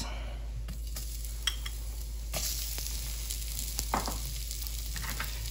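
Oil sizzling in a hot enamelled cast-iron Dutch oven as leek slices are laid in to sauté, with a few light clicks. The sizzle brightens about two and a half seconds in as the leeks hit the oil.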